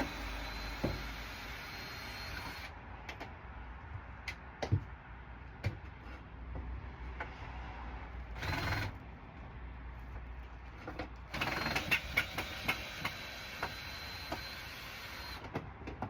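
A cordless drill-driver running in three spells, the longest about four seconds near the end, with clicks and knocks between them as a stuck fitting is worked loose.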